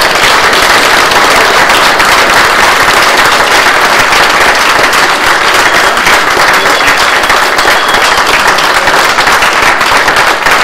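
Audience applauding: loud, steady clapping from many hands.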